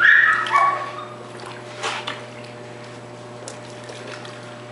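Water splashing and sloshing in a shallow pool as a rubber ball is pushed into it, loudest at the start, with another short splash about two seconds in.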